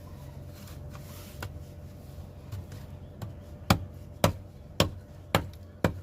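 A series of sharp, evenly spaced knocks, about two a second, starting a little past halfway, over a low steady hum.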